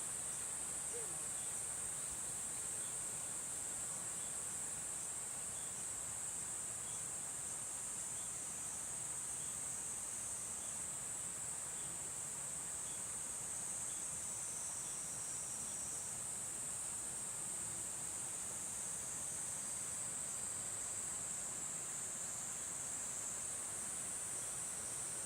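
Steady, high-pitched, unbroken insect chorus in summer, over a fainter, even rush of stream water.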